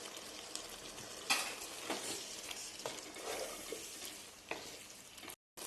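Chicken and masala sizzling in a hot pan while being stirred, with a few sharp knocks and scrapes of the spoon against the pan.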